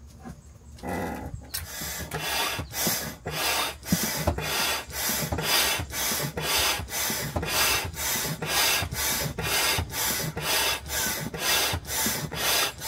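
Hand pump on its deflate setting, worked in quick even strokes to suck the air out of an inflatable stand-up paddle board: a rhythmic rasping rush of air about two and a half times a second, starting about a second in.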